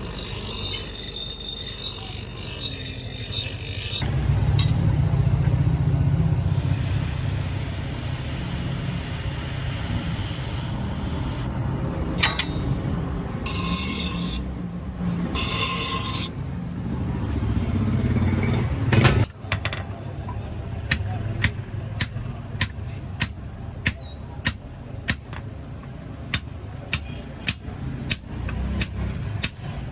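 Metal being worked by hand on an axe head: a long stretch of rough rasping and scraping. About two-thirds of the way through it gives way to a run of sharp, evenly spaced strikes, roughly one and a half a second.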